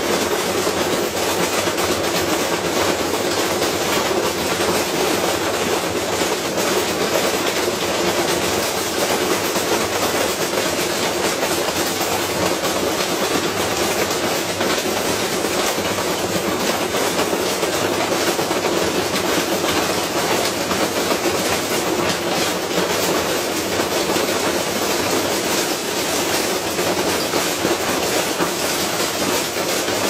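Washing machine spinning with a heavy unbalanced load, shaking itself apart in a loud, steady, fast clattering rattle.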